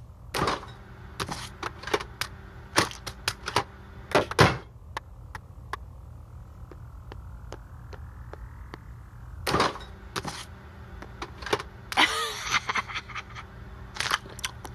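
Cartoon footsteps and handling sounds: a string of sharp, irregular clicks and knocks. A soft rising hum comes in the middle, and a short burst of rustling and clatter near the end as the refrigerator is opened.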